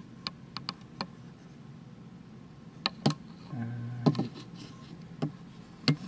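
Scattered sharp clicks and taps of hands and the camera handling the 3D printer's plastic arms and frame: a quick run of four in the first second, then a few more spread through the rest. A short low hum sounds a little past the middle.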